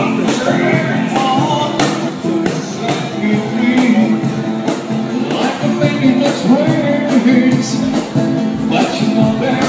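Live acoustic busking: a man singing into a microphone while strumming an acoustic guitar, with a cajon played by hand keeping the beat.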